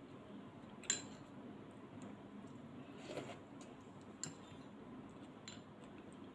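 Chopsticks and dishes clinking lightly: a few separate taps, the sharpest about a second in.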